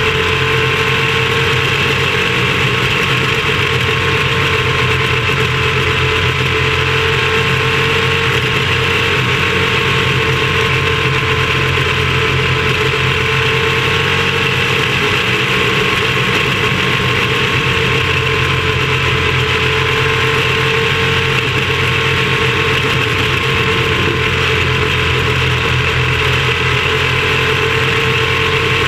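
Onboard sound of a small racing car's engine held at high revs at racing speed, its pitch dipping and rising slightly through the turns.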